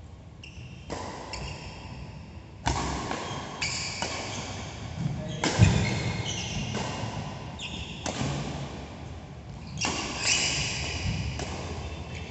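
Badminton doubles rally in a large hall: rackets strike the shuttlecock every second or two, and each sharp knock echoes. Short high squeaks of shoes on the synthetic court mat fall between the hits. A heavy thud of a footfall about halfway through is the loudest sound.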